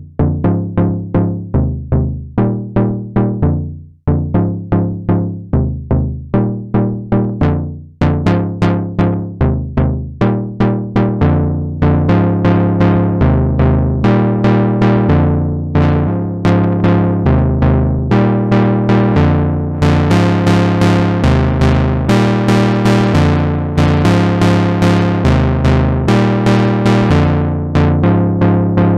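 Moog Rogue two-oscillator analog monosynth playing a dirty lead patch: a rhythmic line of short, decaying notes on shifting low pitches. About twelve seconds in the notes start to hold longer, and near twenty seconds the tone turns much brighter as the filter is opened.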